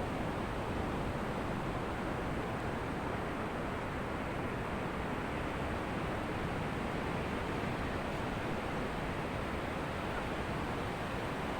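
Ocean surf washing on a beach, a steady even rush with no distinct breakers standing out.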